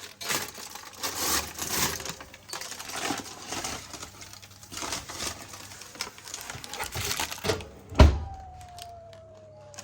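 Irregular rustling and handling noises, with one sharp knock about eight seconds in followed by a faint falling tone.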